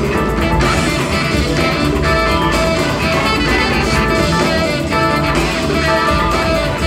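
A jazz big band playing a funk tune live, with electric guitar standing out over the band.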